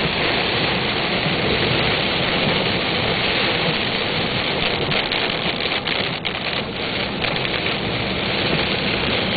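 Heavy thunderstorm rain pelting a moving car, heard from inside the cabin as a steady, dense hiss mixed with the tyres on the wet road. A few faint ticks come between about five and seven seconds in.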